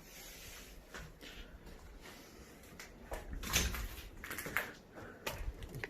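Scattered scuffs, knocks and crunches of people moving over debris in a small, wrecked room, with a cluster of them from about three seconds in.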